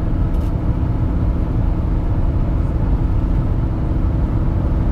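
Camper van driving along the road, heard from inside the cab: a steady low engine hum with road rumble.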